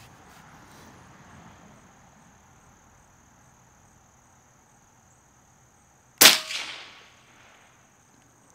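.22 air rifle firing once, about six seconds in: a single loud, sharp crack from a light 3D-printed steel-core pellet leaving the muzzle at supersonic speed. The crack fades over about a second.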